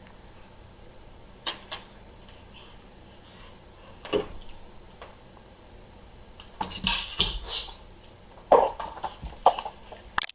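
A cat pawing under a closed door: scattered short scratches and taps of its claws against the door and floor, more frequent in the second half, over a steady high-pitched hiss.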